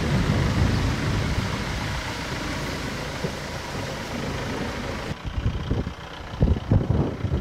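Wind rumbling on the microphone outdoors: a steady rumbling hiss, then, after a cut about five seconds in, uneven gusty buffeting.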